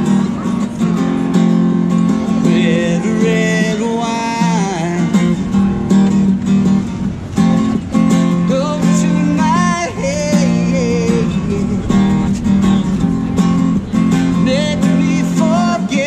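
Acoustic guitar strummed in a reggae rhythm, with a melody line above it that slides and bends in pitch: an instrumental passage of a live reggae cover song.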